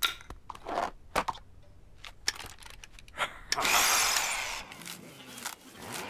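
A cordless drill whirs briefly for about a second, partway through, and then fades. Before it come a few short clicks and knocks.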